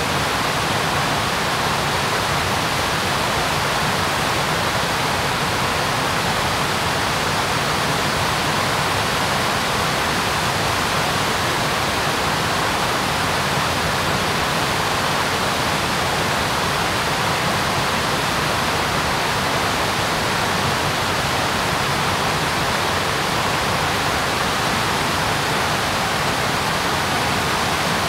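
Steady, loud rush of the Dynjandisá river's waterfalls and the rapids below them, an even roar of falling and tumbling water with no change.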